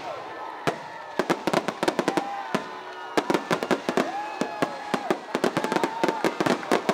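Fireworks finale barrage: many shells bursting in rapid, overlapping bangs and crackles. A short lull comes a little before the middle.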